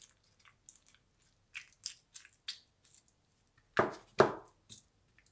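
Coarsely chopped radish and onion coated in honey being stirred in a glass jar: a run of short wet crunches and squelches, with two louder ones about four seconds in.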